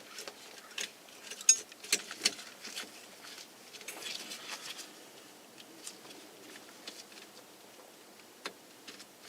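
Scattered light clicks, taps and rattles of hands working a turn signal switch and its wiring harness into a steering column, busier for the first few seconds and then down to a few single ticks.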